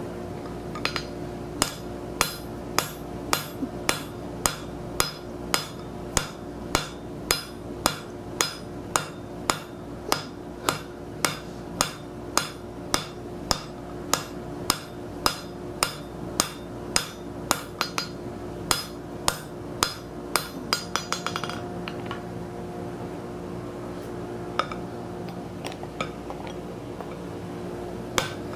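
Hand hammer striking a red-hot steel bar on an anvil to draw it down, about two blows a second for some twenty seconds; the blows then stop and only a few single strikes follow. A steady hum runs underneath.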